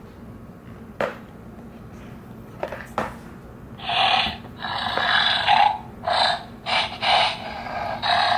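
A few sharp clicks, then a dinosaur growl sound effect from a children's sound book's small speaker, coming about four seconds in as a run of rough, noisy bursts.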